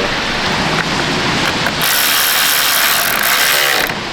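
Ratchet wrench clicking as it backs out a 10 mm bolt, a fast rattle that grows louder about two seconds in and stops near the end.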